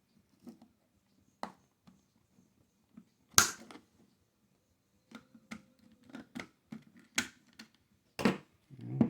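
Irregular sharp plastic clicks and taps from handling a PS4 controller's shell and tools during disassembly, one louder knock about three and a half seconds in and a quicker run of small clicks in the second half.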